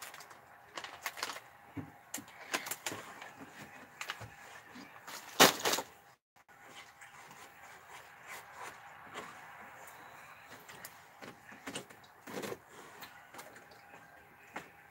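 Scattered light knocks and rustling from someone moving and climbing on wooden bunk-bed furniture, with one sharper knock about five and a half seconds in.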